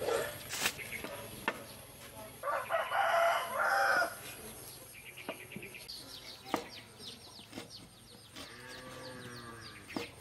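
A rooster crows once, starting about two seconds in; it is the loudest sound. A few sharp knocks come from a cleaver chopping raw meat on a wooden cutting board, and a chicken calls softly near the end.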